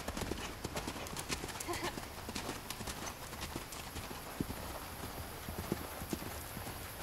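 Hoofbeats of a cantering horse on sandy arena footing under a rider: a run of uneven, muffled thuds.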